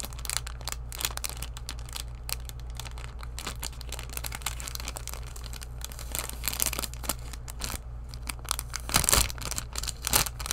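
Clear plastic bags crinkling and rustling as they are handled and opened, a dense crackle with a louder burst about nine seconds in.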